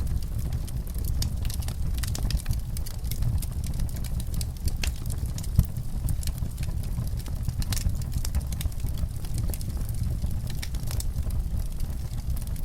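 Wood fire burning in a fireplace: frequent small crackles and pops over a steady low rumble, with one sharper pop about five and a half seconds in.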